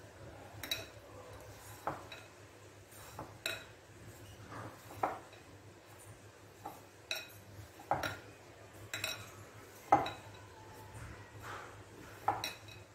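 Hand mixing crumbly roasted gram flour and powdered sugar in a glass bowl: a soft rustle broken by irregular sharp clinks, about one or two a second, as metal bangles knock against the glass bowl.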